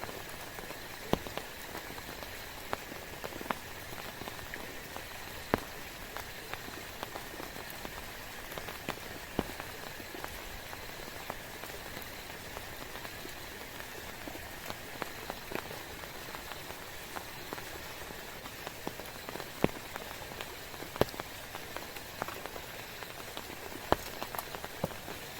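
Steady rain falling, with frequent sharp, irregular taps of single drops striking a nearby surface.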